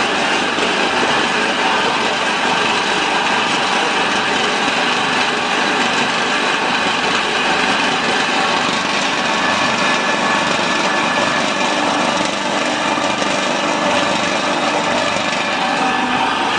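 Small flat-die animal feed pellet mill driven by an electric motor, running steadily under load while pressing feed into pellets. It gives a steady whine over a dense, rough mechanical noise, with no change in speed.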